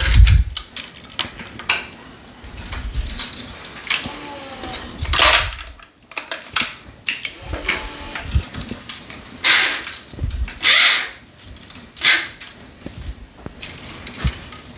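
Tennis string being pulled by hand through the cross strings of a racket, several long zipping rushes of string sliding against string, with clicks and knocks from handling the racket and string on a stringing machine.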